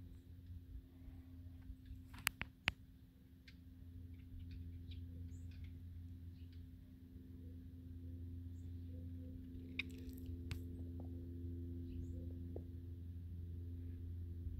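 A faint steady low hum with a few steady pitched tones above it, growing a little louder partway through. Two sharp clicks come close together a little over two seconds in.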